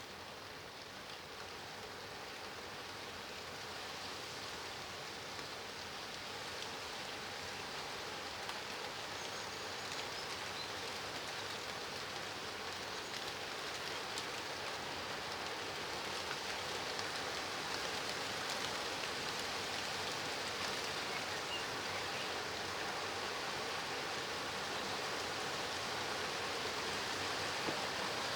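Steady rain falling, an even hiss with faint scattered drop ticks, growing gradually louder over the whole stretch.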